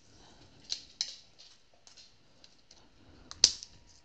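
Light clicks and taps of small objects being handled on a craft table, with one sharp click about three and a half seconds in.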